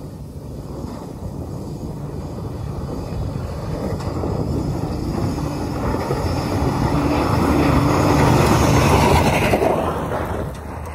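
Motor vehicle driving over rough ground, engine and tyre noise building steadily to a peak about eight to nine seconds in, then easing off.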